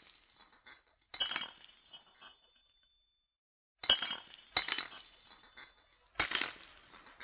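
Glasses clinking together four times, each strike leaving a high ringing tone that hangs on briefly. The last clink is the loudest and brightest.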